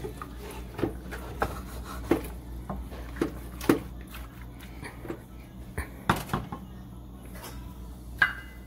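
Wooden spoon stirring raw seasoned chicken pieces in a nonstick pot: irregular soft knocks and scrapes of the spoon against the pot and meat, with a brief ringing clink near the end.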